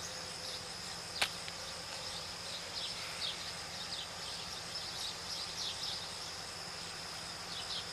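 Outdoor early-morning background of insects droning steadily at a high pitch, with scattered short bird chirps. A single sharp click about a second in.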